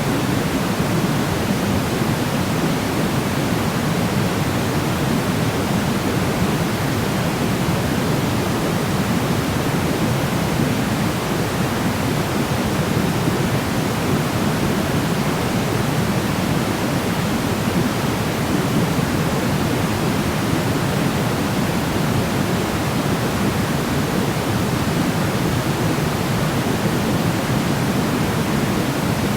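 Steady sleep-noise track: an even, unbroken hiss with its weight in the low end, like pink noise, unchanging throughout.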